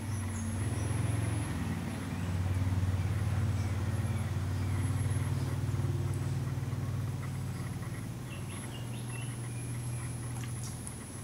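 A steady low engine-like hum that swells and fades slowly, under a thin, high, continuous insect drone, with a few short chirps near the end.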